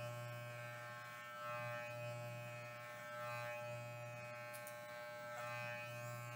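Corded electric hair clippers buzzing steadily as they cut hair close to the scalp in a head shave.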